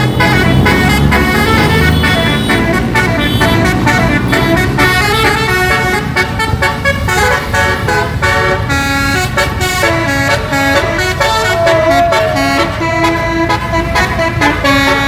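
A 12-note Basuri multi-tone 'telolet' bus horn with roof-mounted trumpets plays a fast tune of changing notes, several sounding at once. A wavering, warbling tone joins in about ten seconds in.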